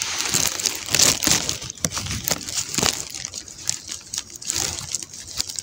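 Close rustling and crackling of plants and brush being handled, an irregular run of small crackles and snaps.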